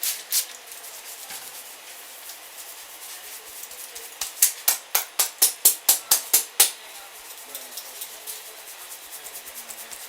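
Fingers scratching and rubbing a scalp through the hair during a head massage: soft steady rubbing, with a fast run of about a dozen vigorous strokes, about five a second, a little after the middle.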